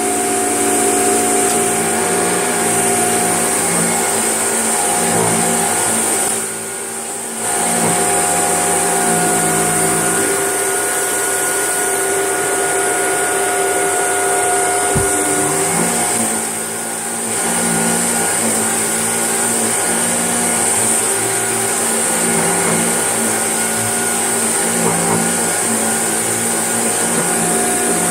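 Shark vacuum cleaner running, a steady motor whine that drops off briefly twice, with a single pop about halfway through.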